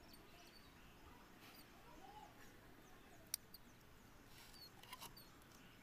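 Near silence with faint, short bird chirps. A single sharp snip of pruning shears cutting a bonsai twig comes a little past halfway, with a couple of fainter clicks near the end.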